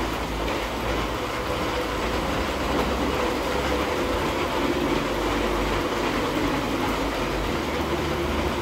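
Three Lego toy trains (Remote Control, Power Functions and Powered Up motors) running on plastic track: small electric motors and wheels rolling on the rails, a steady running noise without a break.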